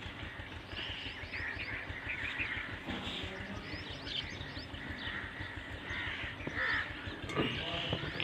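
Birds calling repeatedly: many short chirps and a few harsher calls.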